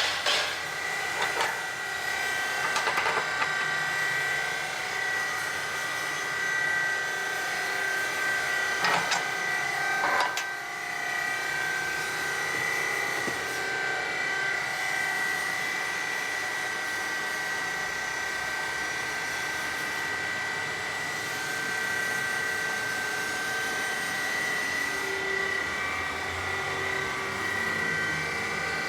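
Baling press machine running with a steady high whine, with a few sharp knocks, two of them close together around nine and ten seconds in.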